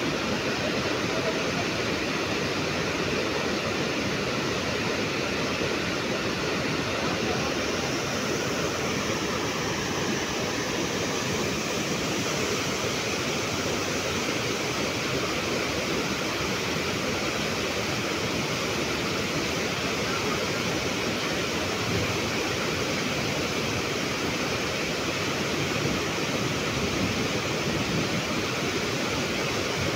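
Water released from a concrete dam rushing and churning in white water over rocks below it: a steady, unbroken rushing noise.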